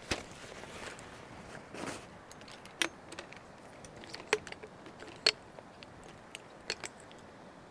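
A campfire in a small metal fire pan being poked and stirred: a handful of sharp clicks and light metal clinks, spaced about a second apart, over a faint steady hiss.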